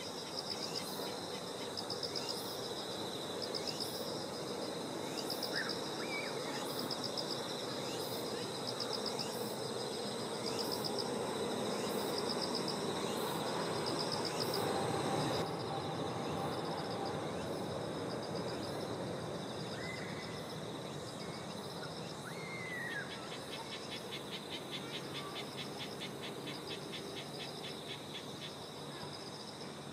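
Crickets and other insects chirping continuously in fast, pulsing trills, with a few short bird calls, over a low distant rumble that swells toward the middle. The insect chorus changes abruptly about halfway through.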